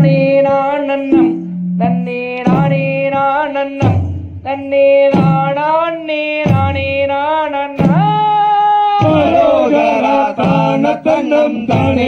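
Tamil valli kummi folk song sung in drawn-out phrases by a lead voice, with several voices joining in about nine seconds in.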